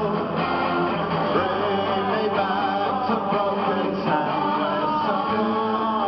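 Live rock band playing, with electric guitars and male lead singing, recorded from the audience with a dull top end.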